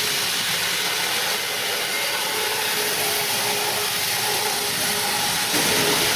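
N-scale model train running on its track: a steady whirring of the locomotive motors and wheels on the rails, with a faint steady whine.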